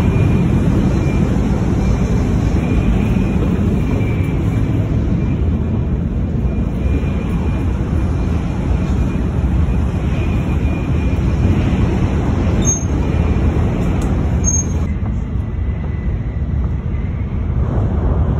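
Shinkansen bullet train running at speed, heard from inside the passenger cabin: a steady low rumble with a faint thin high tone over it. Near the end it changes to outdoor street noise.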